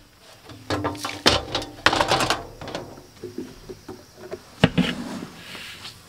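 Clanks and knocks from a steel feed drum's lid being handled and a metal pail being scooped into the grain inside the drum. The knocks come in clusters, with a sharp one about two-thirds of the way through.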